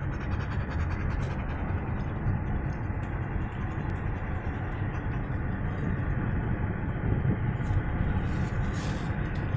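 Steady road and engine noise inside a moving car, a deep even hum with no sudden events.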